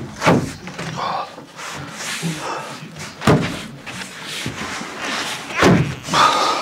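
A large plywood wall panel knocking and scraping against the cabin side and battens as it is pushed into place by hand for a trial fit, with a few heavy thumps, the loudest about three seconds in and near the end.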